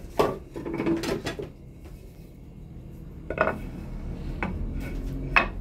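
Several separate knocks and clatters of kitchen things being handled, among them a wooden chopping board being brought over and laid down on a tiled counter. There is a cluster of knocks about a second in and sharper single ones later, the last near the end.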